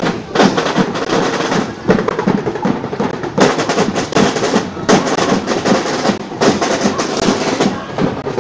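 Marching parade drum section, snare drums and bass drums, beating a rapid rhythm.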